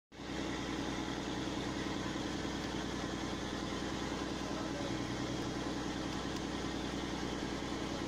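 Fishing boat's engine running steadily, a low drone with a fast, even throb.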